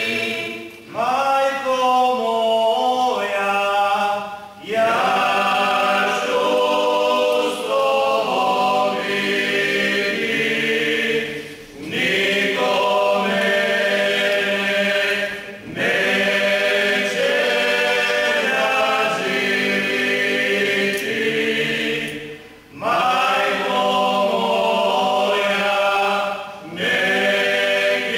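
Folk choir of women and men singing a Lenten church song unaccompanied, in sustained phrases broken by short pauses every few seconds.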